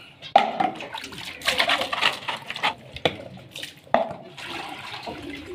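Water sloshing and splashing in a small plastic bowl as a hand swirls and rinses it, with three sharp knocks, one near the start and two at about three and four seconds in.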